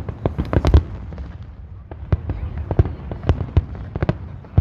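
Fireworks going off in an irregular stream of sharp bangs and crackles, several a second, with a cluster of loud bangs near the start, over a continuous low rumble of further explosions.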